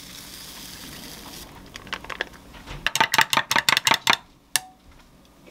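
Powder poured from a stick sachet into a glass of water with a soft hiss, then a stirrer clinking rapidly against the inside of the glass as the drink is mixed. It ends with a single ringing tap on the glass.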